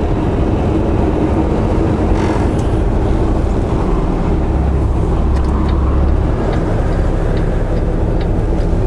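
Semi-truck diesel engine running as the rig pulls away slowly, a steady low drone with road noise heard from inside the cab. The deepest part of the drone grows stronger for a couple of seconds about halfway through.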